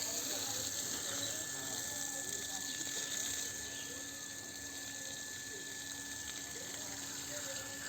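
Steady hissing noise with faint distant voices underneath.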